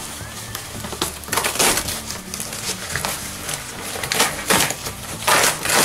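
Corrugated cardboard packaging being handled while a box is unpacked: flaps and sheets bent, folded and dragged, crunching and scraping in several irregular bursts.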